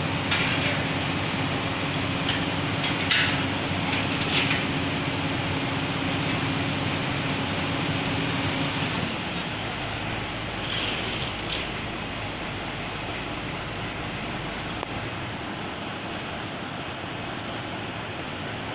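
Heavy diesel machinery idling, a steady low hum whose note changes about halfway through. There are a few short sharp sounds in the first seconds, and a motorcycle passes.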